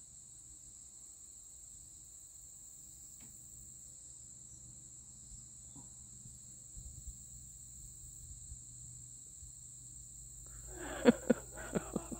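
Insects droning steadily at a high pitch in woodland. Near the end a quick run of five or so short, sharp sounds stands out above the drone.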